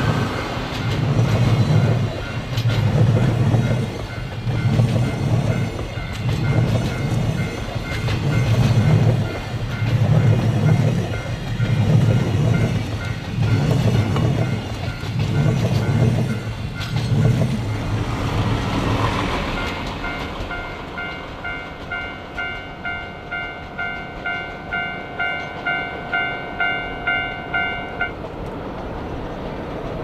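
Freight train of JR Freight container wagons passing close by at speed. Its wheels clatter over the rail joints in a heavy rhythm, about once a second, and the sound fades after the last wagon goes by. A steady, repeating ringing is heard under the train and then on its own once the train has passed; it stops near the end.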